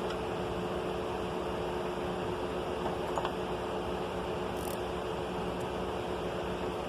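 Steady machine hum, like a running fan, with a few faint light clicks about three seconds and four and a half seconds in.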